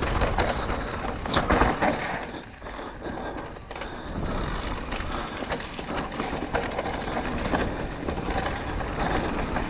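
Mountain bike descending a dirt trail: wind rushing over the microphone, tyre noise and the frame and parts rattling and knocking over bumps, easing off for about a second and a half near the middle.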